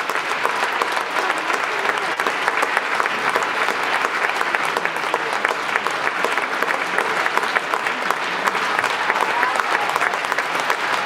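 Audience applauding: dense, steady clapping that neither builds nor fades.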